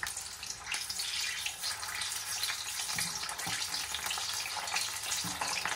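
Battered prawns deep-frying in hot sunflower oil: a steady crackling sizzle as the batter starts to puff up.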